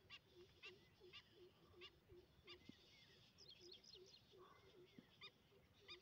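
Faint, repeated bird calls: short low notes about three times a second under sharper high chirps about twice a second, with a brief flurry of higher chirps midway.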